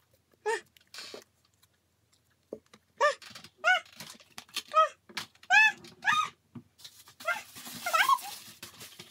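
A string of short, high-pitched calls that each rise and fall, with pauses between them, followed by rustling near the end.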